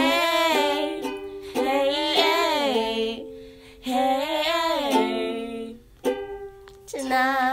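Amateur singing over a strummed ukulele: three long, wavering held notes with no clear words, then a ukulele chord strummed about six seconds in and a last sung note starting near the end.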